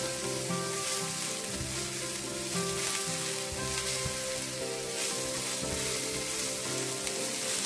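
Diced vegetables and egg sizzling steadily in a stainless steel frying pan on high heat while a spatula stirs them, with background music underneath.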